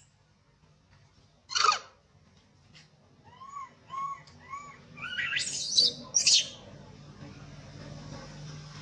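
Animal calls: a loud harsh shriek about two seconds in and three more close together around five to six seconds, with a run of short arched chirps about twice a second between them.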